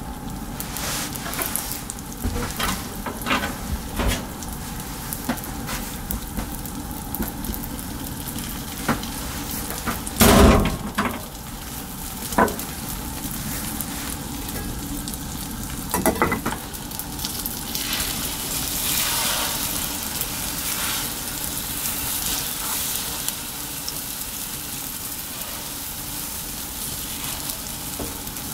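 Beaten egg sizzling in a square tamagoyaki pan over a gas flame, a steady frying hiss. A few sharp knocks sound over it, the loudest about ten seconds in.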